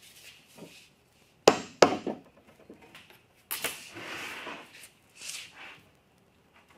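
Two sharp knocks about a second and a half in, then a hand sweeping wood shavings across a flat MDF board, with a shorter brushing sound near the end.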